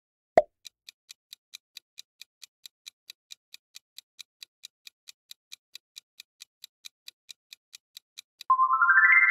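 Quiz countdown-timer sound effect: a short pop, then steady clock ticks about four a second while the timer bar fills. Near the end comes a quick rising chime of stepped tones that signals time is up.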